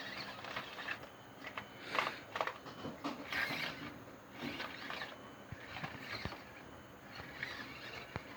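Axial Deadbolt electric RC crawler truck driving over a porch obstacle course: its motor whirs in short throttle bursts, with a few sharp clicks and knocks from the truck on the obstacles.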